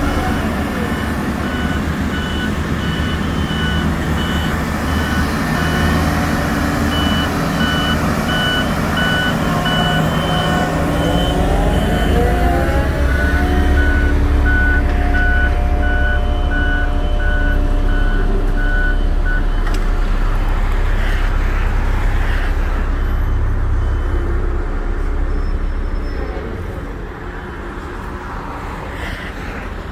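A heavy truck's reversing alarm beeping at a steady, even rate over a diesel engine's continuous drone. The beeping stops about two-thirds of the way through, and the engine carries on a little quieter near the end.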